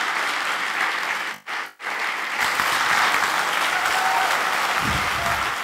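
Audience applauding, a dense steady clapping that cuts out twice briefly about one and a half seconds in and then resumes.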